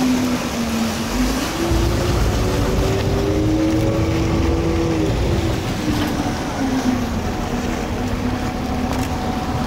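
Vaporetto water bus's diesel engine running underway, its note rising about a second in and settling back down after about five seconds, over a steady rush of water and wind noise.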